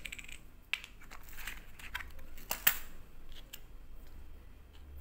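Hands handling a small cardboard box and its small plastic and cable accessories: scattered light clicks and rustles, the sharpest about two and a half seconds in.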